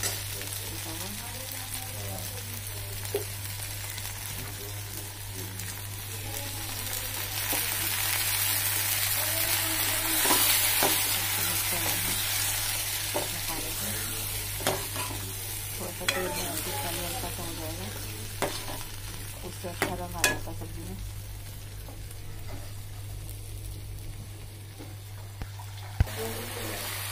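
Onion, tomato and spices sizzling in hot oil in a frying pan while a steel spoon stirs them, with a few sharp scrapes and taps of the spoon against the pan. A steady low hum runs underneath.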